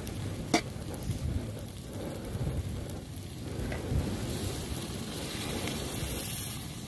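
Noodles and vegetables sizzling in a wok on a portable gas stove, with a sharp metal clink about half a second in. From about four seconds in, water poured from a camping kettle into the hot wok, hissing.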